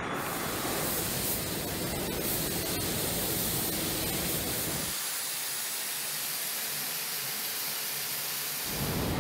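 Paint spray guns hissing steadily as they spray paint onto an aircraft's skin. About five seconds in, the low rumble under the hiss drops away, leaving a thinner high hiss, and it returns near the end.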